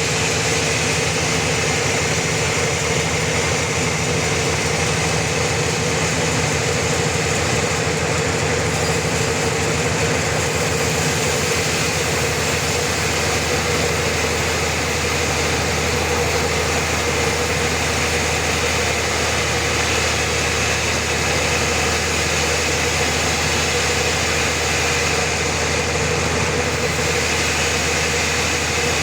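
Sawmill's engine running steadily under a continuous hum; about 13 seconds in, its low pulsing rumble evens out into a steadier drone.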